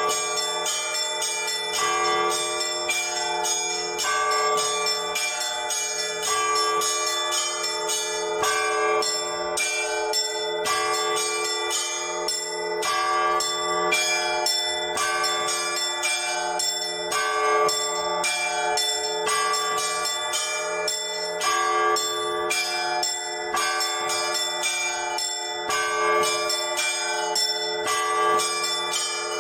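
Orthodox church bells rung by hand by a single bell ringer: many bells of different pitch struck in a steady, repeating rhythmic pattern over a continuous low bell tone.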